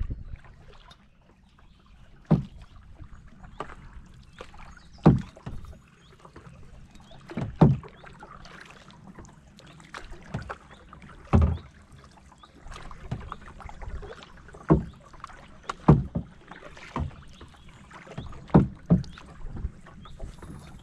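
Kayak paddling: the blades of a double-bladed paddle dip and splash on each stroke, with a sharp knock or splash every one to three seconds over a low, quiet background hiss.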